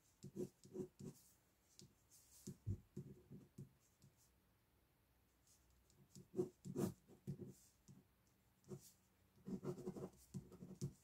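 Pen scratching on paper in clusters of quick, short sketching strokes, with short pauses between the clusters.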